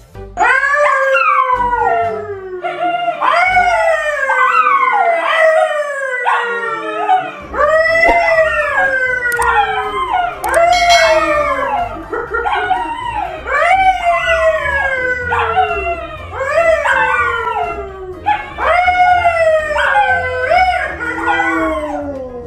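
A man and two dogs, a yellow Labrador and a brown poodle, howling together. Long howls, each sliding down in pitch, come one after another and overlap.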